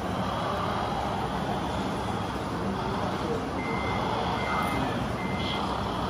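Reversing beeper of a radio-controlled truck sounding three short, evenly pitched beeps in the second half, over a steady rushing background noise.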